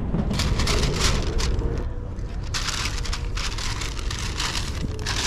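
A bag crinkling and rustling in quick, dense crackles, easing off briefly about two seconds in, over a steady low rumble.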